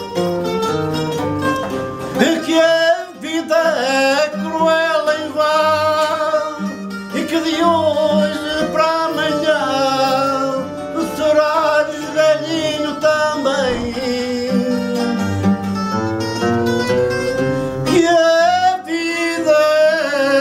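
Fado: a male fadista singing with vibrato, accompanied by a guitarra portuguesa and a viola de fado.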